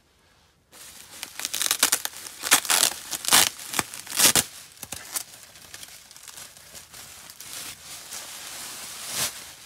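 Plastic bubble wrap crinkling and crackling as it is handled and pulled open, starting just under a second in and loudest in the first few seconds.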